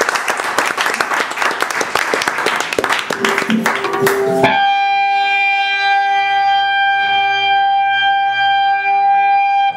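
Live rock band in a small club: a loud, dense wash of band sound at first. About four and a half seconds in, a single electric guitar tone comes in, held steady, and cuts off suddenly near the end.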